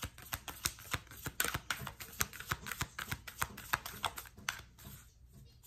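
Deck of cards being shuffled by hand: a rapid, irregular run of light clicks and snaps as the cards slap together, thinning out near the end.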